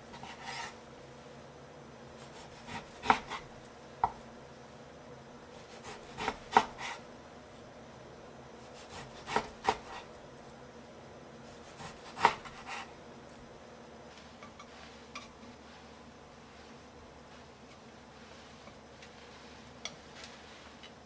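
A chef's knife slicing through a block of raw pork loin, knocking on the wooden cutting board as each cut goes through, about every few seconds. The knocks stop about two-thirds of the way in, leaving only a few faint ticks near the end.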